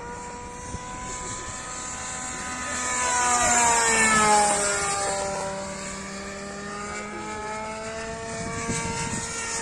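Radio-controlled warbird model airplane's motor and propeller whining as it flies past. The pitch drops and the sound swells as it passes about three to four seconds in, then runs on steadily.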